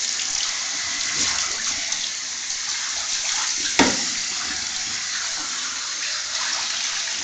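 Handheld shower spraying water onto a dog's wet coat: a steady hiss of running water, with one brief knock about four seconds in.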